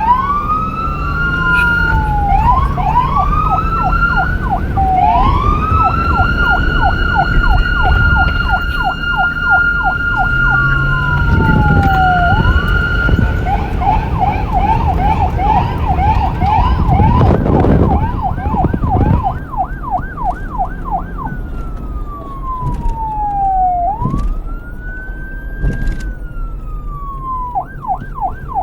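Police car siren switching between modes: a rising wail held at a steady high tone for several seconds, a fast yelp warbling about three times a second, and slow downward slides between them, over a low vehicle rumble.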